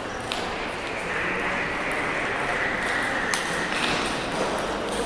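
Table tennis rally: the ball clicking sharply off the paddles and the table, a few irregularly spaced clicks.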